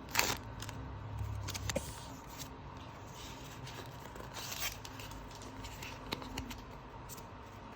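Foil booster pack of trading cards being torn open and handled, with a sharp rip or crinkle just after the start, then scattered scraping and rustling as the cards are pulled out.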